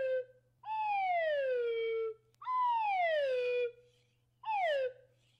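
Dog howling in a run of drawn-out falling calls: three 'awoo's, each sliding down in pitch, the last one shorter. A faint steady low hum runs underneath.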